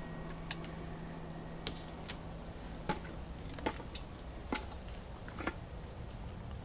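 Scattered drips of leftover rainwater falling from wet trees after a downpour: sharp, irregular ticks about once a second over a steady hiss. A low hum stops about three seconds in.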